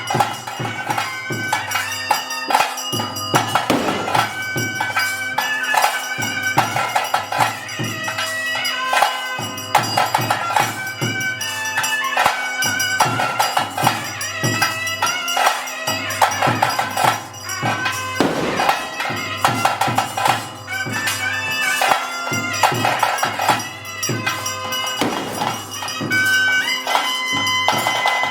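Bhoota kola ritual band music: a reed wind instrument playing over a steady drone, with drums and cymbals struck continuously.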